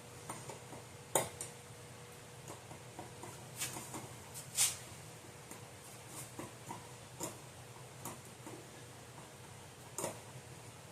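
Scattered light clicks and knocks of hands fitting a Gentex Commander 3 fire alarm horn strobe in place, the sharpest about a second in, near the middle and near the end, over a faint steady hum.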